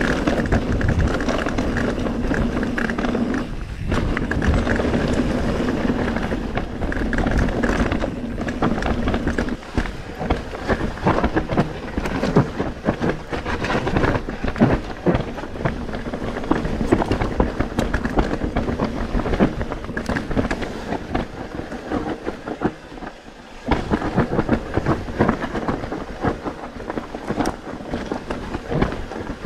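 Mountain bike descending a rough trail: tyres rolling and skidding over rocks and roots, the bike's frame and chain rattling with rapid knocks. A steady buzz runs through the first several seconds, and the noise eases briefly a little after twenty seconds in.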